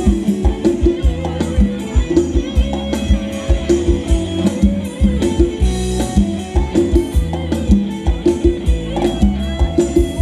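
Live Thai ramwong dance-band music with a steady, driving drum beat of about three to four hits a second.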